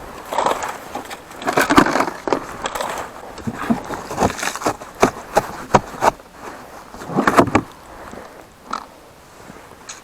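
Ice-fishing tip-ups and gear being unloaded and handled: irregular clicks, knocks and rustling, busiest in the first half, with a louder rustle about seven seconds in, then fewer sounds.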